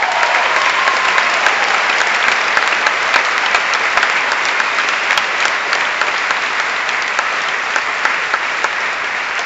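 Large auditorium audience applauding loudly, a dense steady clatter of many hands clapping, with a brief cheer at the start; it eases slightly toward the end.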